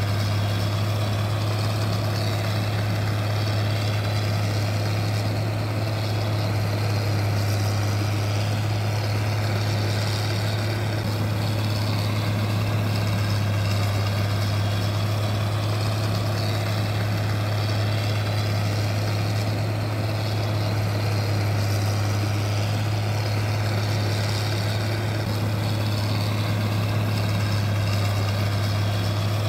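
A steady, unchanging low machine hum with a constant pitch, with no revving or pauses.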